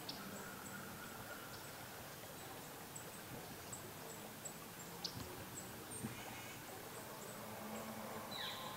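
Quiet woodland with faint, high chirps repeating about every half second. A couple of soft clicks come in the middle, and a short falling call sounds near the end.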